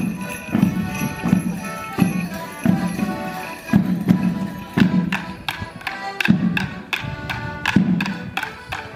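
Morris dance tune played on accordion over a steady drum beat. From about five seconds in, wooden Morris sticks clack together in a quick run of sharp strikes on the beat.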